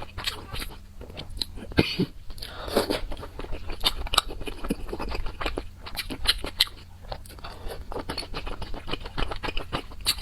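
Close-miked eating: irregular crisp crunches and chewing as a person bites into and chews spicy chilies and chili kimchi.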